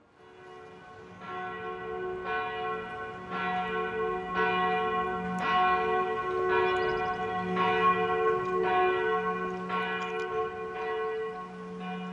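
A church bell tolling, about one stroke a second, each stroke ringing on into the next over a sustained hum. It fades in from silence in the first second.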